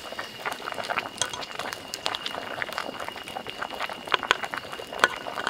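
Pot of biryani rice at a rolling boil, about half-cooked: a dense, irregular bubbling and crackling.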